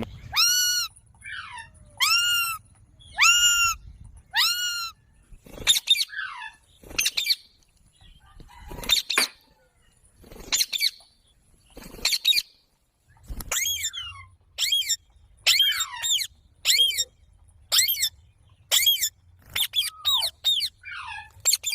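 A parrot calling over and over, short sharp arched calls about one a second.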